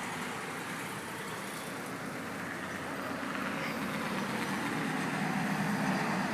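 A motor vehicle engine running steadily, growing gradually louder over the last few seconds.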